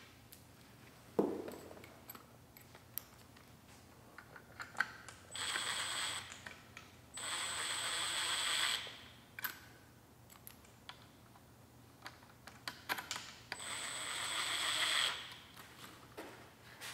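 Cordless driver spinning in three short runs of one to two seconds each, driving the Allen-head bolts that hold the phase block to the Hyper9 electric motor. Between runs there are small metallic clicks and a sharp knock about a second in.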